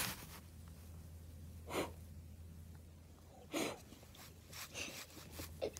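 Short breathy puffs and snorts close to the microphone, about five of them a second or so apart, during rough play with a golden retriever.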